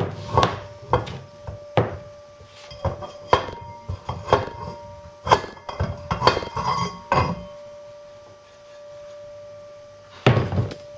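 A steel pole slid over a Land Rover Series front half shaft clamped in a vice is rammed down again and again to drive a heated race onto the shaft. It makes about a dozen metallic clanks over the first seven seconds, each leaving a ringing tone. It then goes quieter, with one more knock near the end.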